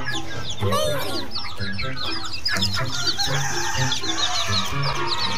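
Young chickens peeping: a dense, continuous chorus of short, high, falling cheeps, with one lower call about a second in. Background music plays underneath with repeating low notes.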